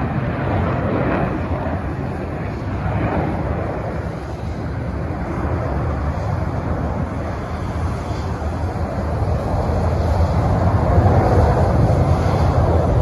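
Distant jet noise from a formation of five F-35B fighters climbing away after takeoff: a steady, heavy low rumble that swells a little near the end.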